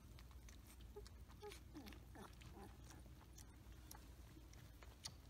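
Faint, short squeaks from two-week-old Samoyed puppies, one sliding down in pitch about two seconds in, over small ticks and rustles as they wriggle on a towel.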